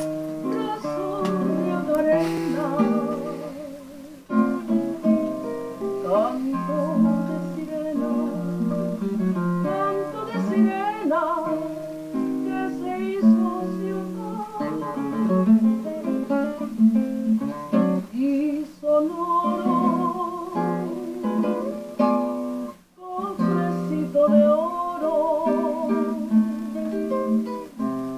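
Acoustic guitar playing a slow song with a singing voice that carries the melody with vibrato, heard through a television speaker.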